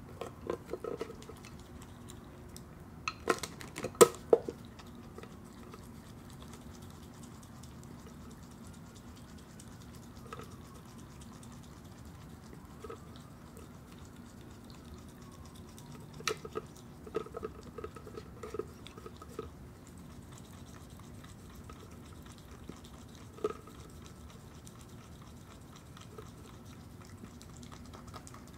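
Virginia opossum eating an ice cream drumstick, with crunching bites and sharp clicks and knocks of the cone against the pet bowl. They come in bursts: the loudest is about four seconds in, another run comes past the halfway mark, and there are long quiet gaps between, over a faint steady hum.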